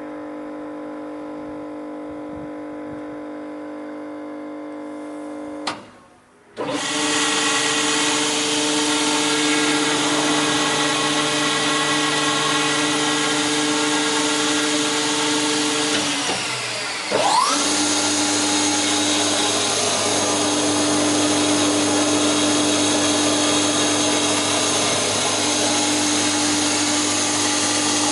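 Pagonu FR100 spindle moulder running, a steady motor-and-spindle whine. About six seconds in it breaks off for a moment and comes back louder. Around seventeen seconds it dips, then its pitch rises back to a steady run.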